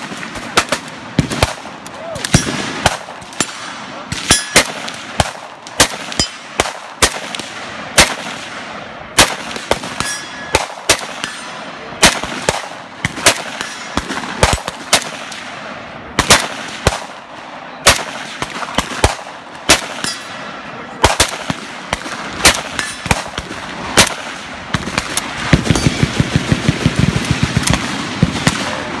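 Kalashnikov USA AK-pattern rifle fired shot after shot, loud single reports about every half second to a second. Fainter gunfire from other shooters is heard between them, and a fast string of shots comes near the end.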